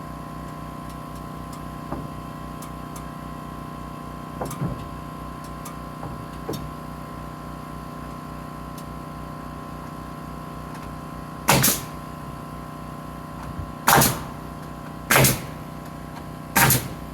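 Framing nail gun firing four nails into a 2x6 brace on the rafters, each shot a sharp bang with a short burst of air, over a steady machine hum. A few light knocks of wood handling come before the shots.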